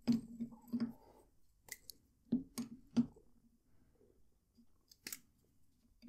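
Caps being pulled off fountain pens (a Wing Sung 698, a Pilot Metropolitan and a Lamy Safari) and the pens and caps laid down: a handful of small clicks and light taps, bunched in the first second, then single clicks about half a second to a second apart, and one more about five seconds in.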